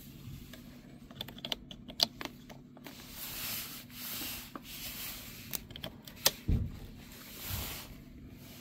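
Battery tester clamp leads and cables being handled around a car battery: a scatter of sharp clicks, rustling and a couple of low thumps, over a faint low steady hum.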